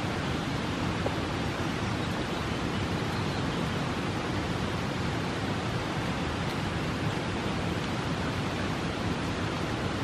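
Steady, even rush of fast-flowing river water.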